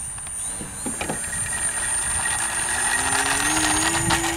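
Electric motor and propeller of a small balsa RC plane (Dancing Wings Savage Bobber) running under throttle, with a steady high whine and a lower drone that rises in pitch through the second half as it speeds up on its takeoff roll.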